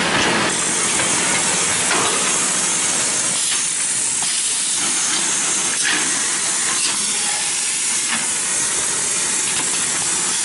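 Automatic parallel paper tube making machine running: a steady hiss of machine noise with faint, irregular clicks.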